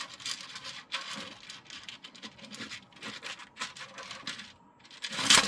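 3D-printed plastic pieces being handled: rapid scratching, rattling and clicking of hard plastic, with a louder clack about five seconds in.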